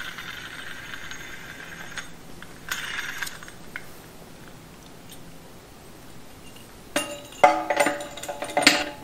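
Metal tools and parts clinking and clanking against a TH350 transmission case. A ringing clink comes at the start and a short rattle about three seconds in. A flurry of sharp, ringing clanks follows near the end and is the loudest part.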